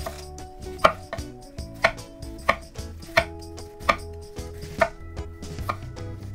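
Large kitchen knife slicing through a red cabbage into thin shreds, each stroke ending in a sharp knock on a wooden cutting board, about seven at a steady, unhurried pace.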